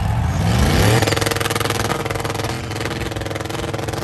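Car engine revving up over about a second, then held steady at high revs while the rear tyres spin in a smoky burnout.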